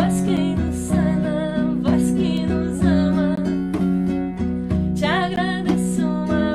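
Acoustic guitar strummed with a hand drum keeping the beat, and a voice singing a wavering melody over them.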